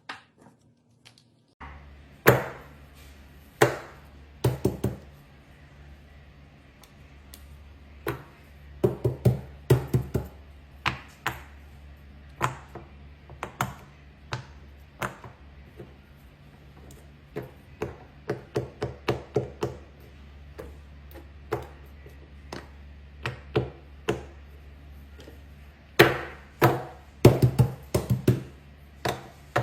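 Sharp taps and clicks in irregular runs, some several a second, over a steady low hum that starts near the beginning.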